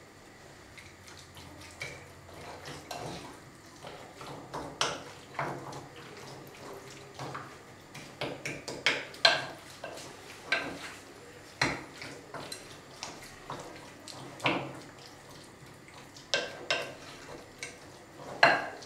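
Wooden spatula stirring and tossing raw lamb pieces in a bowl, knocking and scraping against the bowl's sides in irregular clicks and thuds, as spices are worked into the meat for a marinade.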